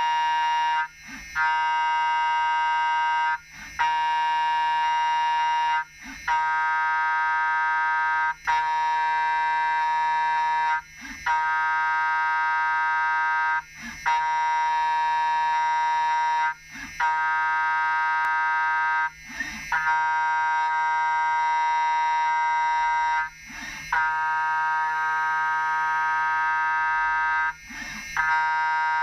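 Hermle five-axis machining centre milling a metal part: a steady, high-pitched whine made of many tones, which breaks off briefly about every two to four seconds.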